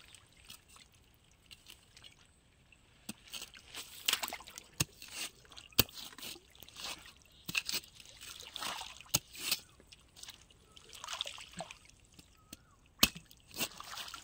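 Shallow muddy canal water sloshing and splashing, with dry grass and reeds rustling as a long-handled hooked blade is worked through them. Several sharp clicks and knocks stand out, the loudest around the middle and near the end.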